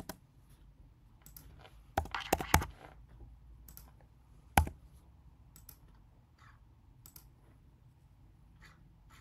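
Computer keyboard keystrokes: a quick run of several sharp clicks about two seconds in, one louder single click a couple of seconds later, then a few faint scattered clicks.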